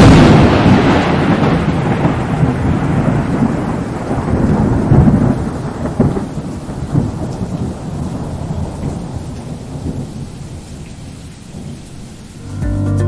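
A loud clap of thunder at the start that rumbles and slowly fades over about ten seconds, over steady heavy rain.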